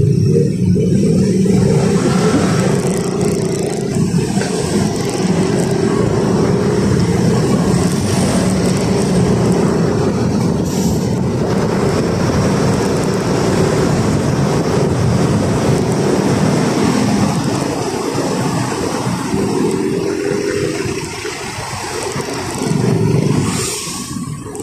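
Motorcycle engine running while riding in slow traffic, with wind rushing over the microphone.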